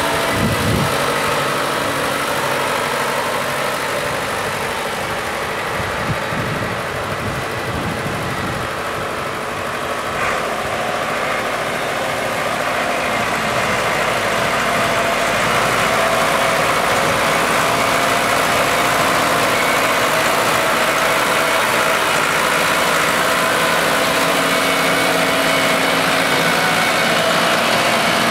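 New Holland farm tractor's diesel engine running steadily under load while driving a Maschio rotary tiller through pasture sod, a little louder in the second half.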